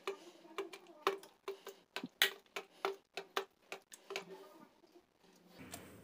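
Steel tumbler knocking and scraping against a steel plate while boiled tomatoes are mashed with it: a run of light, uneven clicks, about two or three a second.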